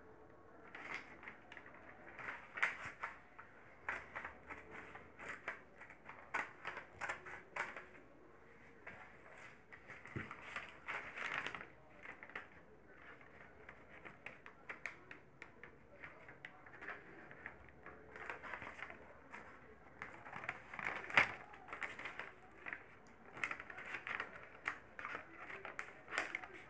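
Scissors snipping, an irregular run of small clicks and crunches from cutting out a paper craft, with a lull in the middle.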